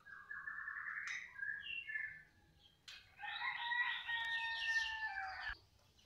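A rooster crowing twice, each crow lasting about two seconds, the second lower and fuller than the first.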